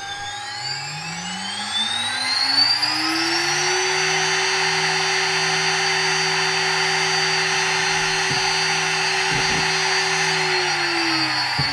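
CNC router spindle on a variable-frequency drive spinning up with a rising whine over about four seconds. It runs at one steady speed, then starts spinning down near the end.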